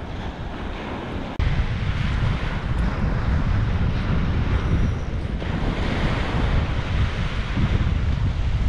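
Wind buffeting the microphone over small waves breaking on the shore, a steady rumbling rush with a brief dropout about a second and a half in.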